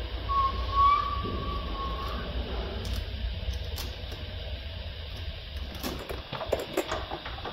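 Door window glass squeaking against its rubber channel as the pane is handled in the stripped rear door of a VW Polo 9N3: one drawn-out squeak of about two seconds, over a steady low rumble. A few light knocks and clicks follow near the end.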